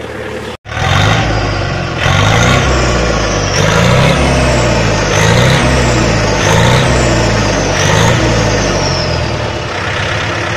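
Yanmar 1160 turbo tractor's diesel engine with its straight exhaust, revved in five short throttle blips about a second and a half apart, a high whine falling away after each, then settling back toward idle near the end.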